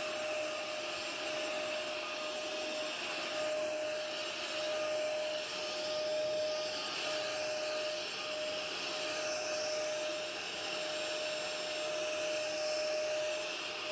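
Hoover upright carpet cleaner running, its motor giving a steady whine with a constant hum tone over a noisy rush, the level rising and falling a little as it is worked back and forth over the carpet.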